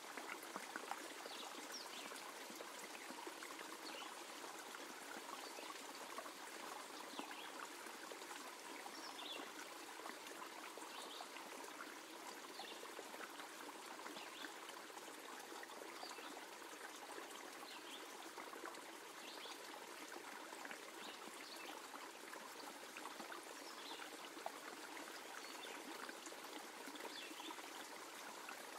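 Soft, steady trickling of running water, like a small stream, with faint short high-pitched ticks scattered through it every second or so.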